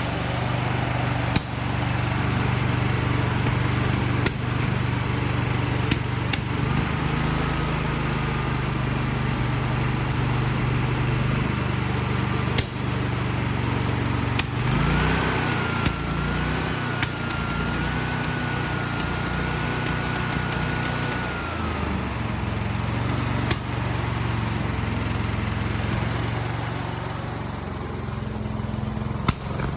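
Sawmill's small engine running steadily and sputtering, with a sharp pop every few seconds. A faint high whine comes in twice, once about a quarter of the way in and again around the middle.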